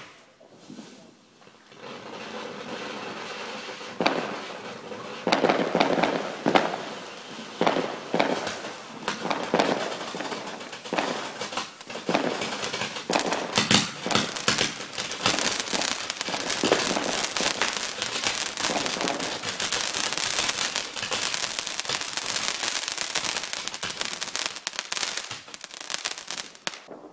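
Fused consumer firework cakes going off. A steady hiss of sparks comes first, then, from about four seconds in, a long, dense run of sharp bangs and crackling that cuts off suddenly near the end.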